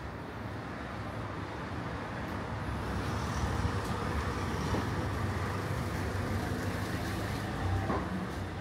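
Street ambience with a motor vehicle's engine hum that grows a little louder about three seconds in, over steady city background noise.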